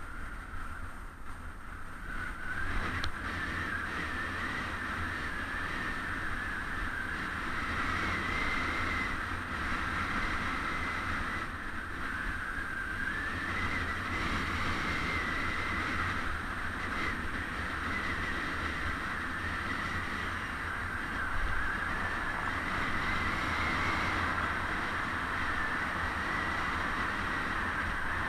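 Steady riding noise of a bicycle on a road, picked up by a bike-mounted camera: wind and road rumble under a wavering hiss.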